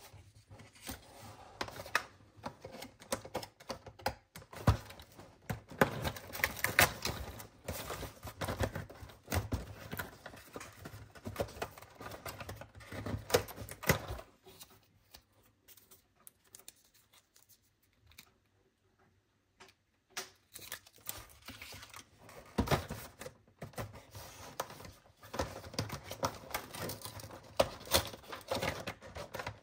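Close-up handling of a cardboard advent calendar and paper jewellery cards: quick clicks, taps and crinkles of card under fingertips and long fingernails, with card doors being torn open. The sound drops away for several seconds around the middle, then picks up again.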